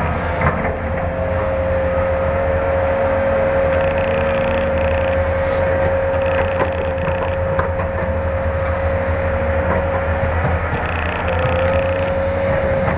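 Caterpillar hydraulic excavator's diesel engine running under load as it digs, swings and loads coal into a dump truck, with a steady high whine over the low engine drone that drops out briefly about ten seconds in.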